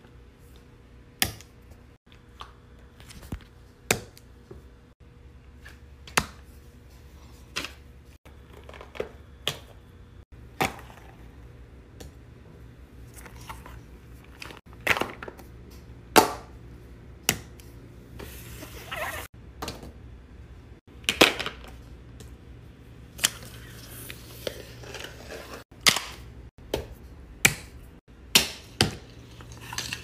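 Irregular sharp taps and thuds as fidget toys (pop-it poppets, a squishy stress ball) are set down and moved by hand on a paper-covered table, over a faint low hum.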